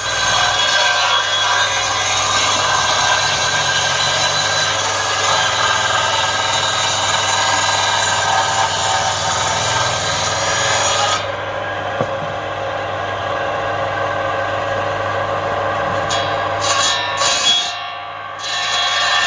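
Belt-driven table saw's circular blade ripping along a block of timber under a steady motor hum. About eleven seconds in the cut ends and the blade runs on more quietly, and a new cut starts shortly before the end.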